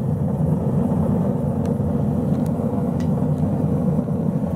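Graham Forge 100,000 BTU propane burner running a gas forge at full fire: a steady low rushing of the burner flame, with a few faint ticks.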